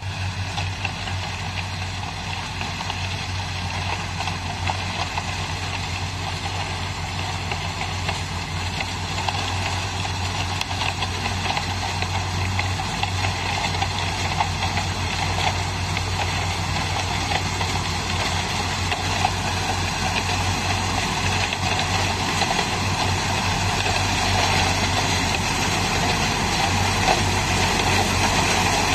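Diesel-powered Wubota sugarcane combine harvester running steadily as it cuts cane and chops and elevates it into a cane truck, the truck's engine running alongside. A constant low hum under a broad mechanical din that grows gradually louder as the machines approach.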